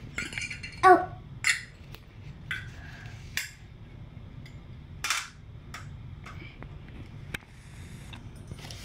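Small metal toy teacups and saucers clinking and tapping against a tin tray and each other as they are picked up and set down: a scatter of separate light clinks. A brief voice sound about a second in is the loudest moment.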